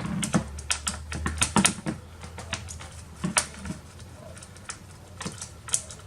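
Irregular sharp clicks and taps of hard plastic and metal parts being handled inside an opened all-in-one computer, busiest in the first couple of seconds and then sparser, with one louder click about three seconds in.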